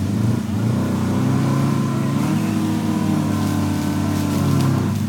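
Off-road 4x4's engine running under load, its note climbing about a second in and again around two seconds in, holding high, then dropping just before the end.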